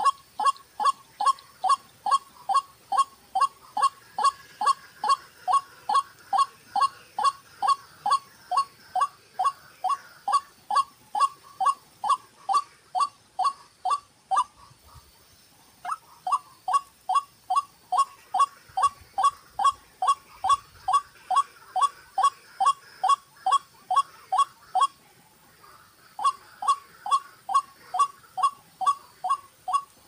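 White-breasted waterhen calling: a long, monotonous series of short 'ruak' notes, about three a second, each dropping slightly in pitch. The series breaks off twice for a few seconds, once before the middle and once near the end.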